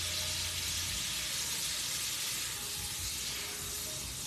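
Shrimp frying in a hot skillet, a steady sizzle. A low hum underneath stops about a second in.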